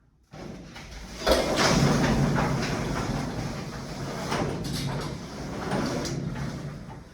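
Kärcher electric pressure washer running: a steady motor hum under the hiss of water spray. It starts about a second in and dies away near the end.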